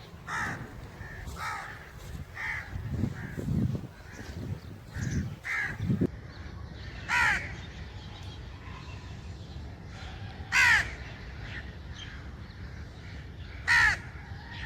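A crow cawing: a run of fainter caws, then three loud single caws about three seconds apart. Low rumbling noise runs under the caws in the middle.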